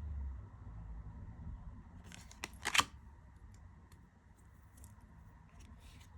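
Tarot cards being handled and turned over: one short sliding swish of a card about two and a half seconds in, followed by a few faint light ticks.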